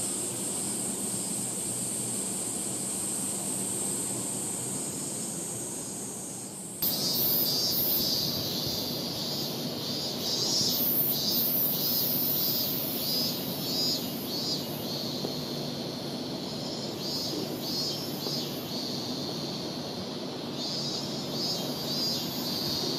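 Cicadas buzzing in trees, a steady high-pitched drone that abruptly becomes louder about seven seconds in and turns into a pulsing, rhythmic chorus, over a low hum of city traffic.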